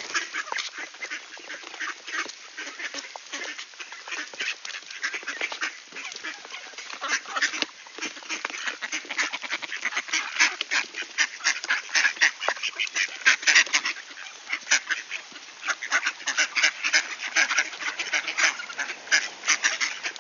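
A flock of mallard ducks feeding on seed: rapid, irregular clicking of many bills picking at grain, mixed with quacks, getting louder and busier about halfway through.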